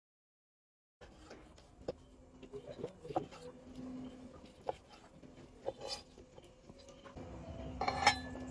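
Dead silence for about a second, then scattered light clinks and knocks of dishes and utensils being handled, over a steady low hum. The clinks bunch together and are loudest about 8 seconds in.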